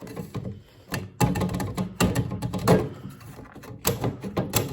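A plastic fridge door shelf being lifted and pulled out of its mountings: a run of knocks, clicks and rattles.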